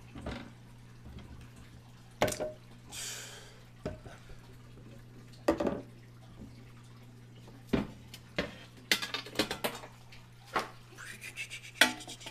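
A glass aquarium lid and a wooden board knocked and set down on tank tops, giving a series of sharp knocks and clatters, with a quick rattle of several about nine seconds in. A steady low hum runs underneath, and there is a short hiss about three seconds in.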